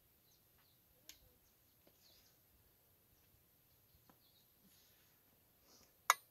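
Quiet outdoor background with a few faint ticks and scrapes, and one sharp click about six seconds in.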